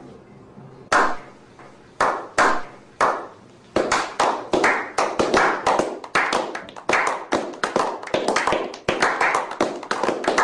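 A slow clap: single hand claps spaced about a second apart, speeding up as more people join, until several people are clapping quickly and overlapping.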